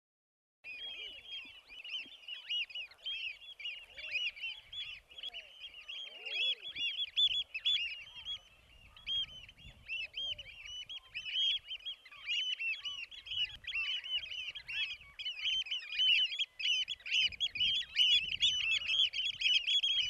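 Large flock of birds calling, with many short overlapping calls in a dense, unbroken chorus that starts abruptly a moment in.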